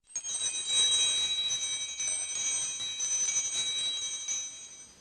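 High bell-like chime tones, several ringing together, repeatedly struck and fading out near the end.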